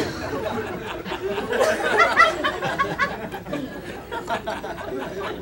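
Comedy club audience laughing after a punchline, many voices overlapping; the laughter swells about two seconds in.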